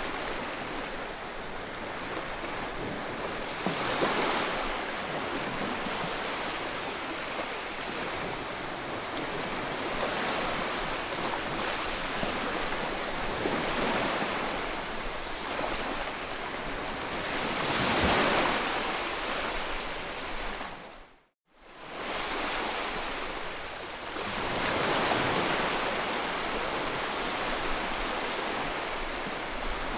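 Ocean waves breaking and washing ashore: a steady rush of surf that swells louder with bigger breakers about four, eighteen and twenty-five seconds in. The sound cuts out for a split second a little past the two-thirds mark.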